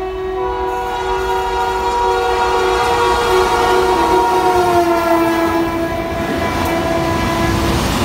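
Indian Railways diesel or electric locomotive horn held in one long continuous blast of several tones at once as a container freight train approaches and passes. Its pitch drops slightly about five seconds in as the locomotive goes by, and the rumble of the passing container wagons swells near the end.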